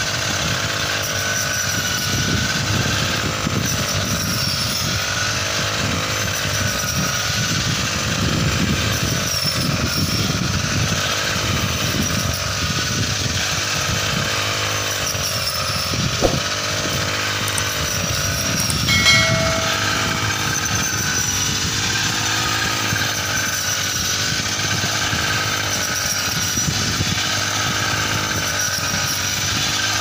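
Small pull-start engine of a shoulder-slung paddy reaper (a brush cutter with a reaper head) running at working speed. Its pitch dips and recovers every few seconds as the blade cuts through standing paddy. There is a sharp click about 16 seconds in and a brief knock about 19 seconds in.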